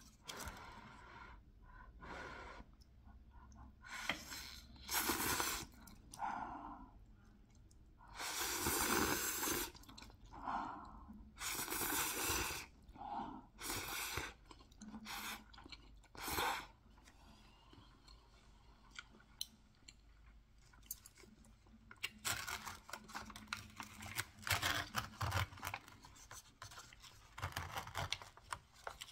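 Instant rice noodles being slurped and chewed, in a string of separate slurps over the first half. After a quieter stretch, a foil lid crinkles and crackles densely near the end.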